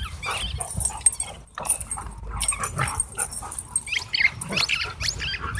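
Dogs giving many short, high yelps and whines.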